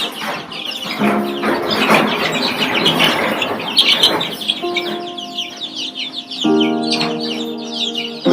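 A crowd of three-week-old Sonali chicks peeping continuously, many short, high, falling chirps overlapping, with background music.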